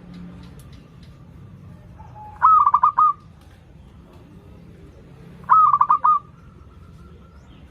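Zebra dove (perkutut) cooing: two short song phrases, each a quick run of four or five clear notes, about three seconds apart.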